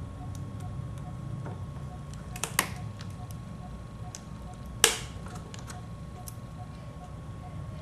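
A few sharp metallic clicks over a steady low hum: a hex key knocking against the muffler bolts of an OS 46AXII two-stroke model engine as they are worked loose. A quick double click comes about two and a half seconds in, and the loudest single click near five seconds.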